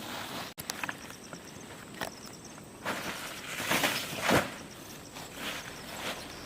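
Irregular crunches and rustles, a few scattered strokes with a denser cluster a little past the middle, over a faint steady outdoor hiss.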